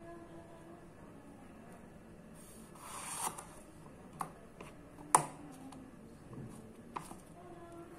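Sakai Takayuki Damascus gyuto slicing through a tomato on a wooden cutting board: a short rising swish as the blade goes through about three seconds in, then a few light knocks on the board, the loudest about five seconds in.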